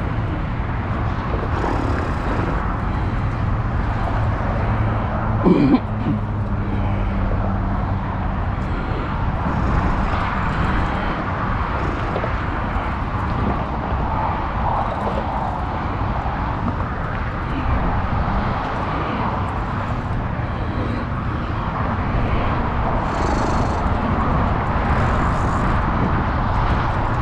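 Steady outdoor rushing noise. A faint low hum runs from about three to eight seconds in, and a short, sharper sound comes about five and a half seconds in.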